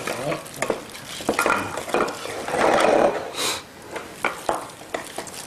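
Clinks and scrapes of a knife against a plate and cutting board as cut raw beef is moved onto a plate, with one longer, louder scrape about halfway through.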